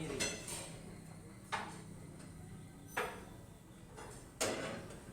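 Four sharp metallic knocks, about a second and a half apart, as the truck engine is shifted into position during installation.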